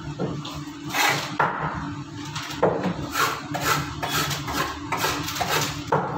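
Steel knife knocking and scraping on a wooden cutting block as fish is cleaned and cut, about a dozen sharp strokes at uneven intervals.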